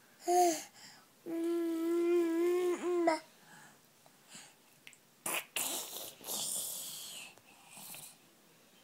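Toddler vocalizing without words: a short "ah", then a long, steady held vocal sound lasting about two seconds. It is followed about halfway through by a few seconds of breathy, noisy mouth sounds.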